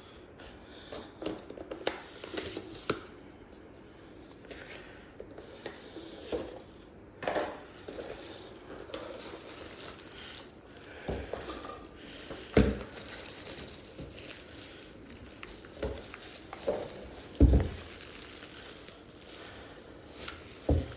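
Packaging being handled during a keyboard unboxing: rustling and crinkling of box and wrapping, with scattered knocks and thumps as pieces are set down, two of them louder than the rest.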